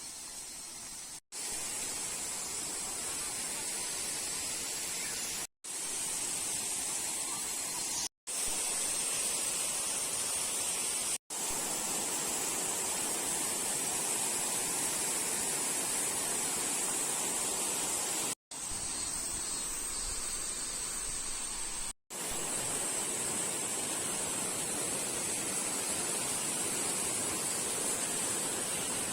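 Awamata Falls running over its rock slab: a steady rushing hiss of falling water. It cuts out briefly about six times where short clips are joined.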